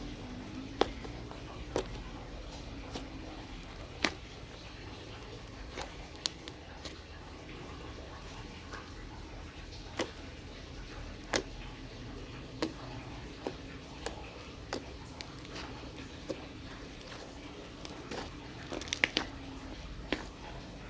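Homemade slime being squeezed and played with by hand, giving irregular sticky clicks and pops, roughly one a second and several in quick succession near the end.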